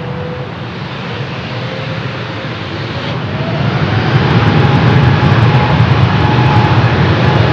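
Jet airliner engines spooling up: a whine climbing in pitch over a broad roar that grows much louder about three to four seconds in, then holds at full power.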